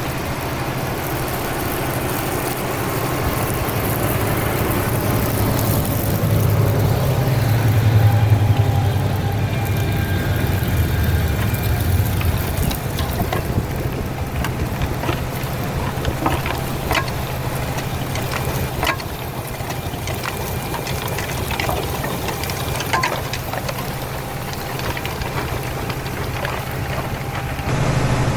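Fendt 933 Vario tractor's engine running steadily, with scattered clicks and knocks in the middle.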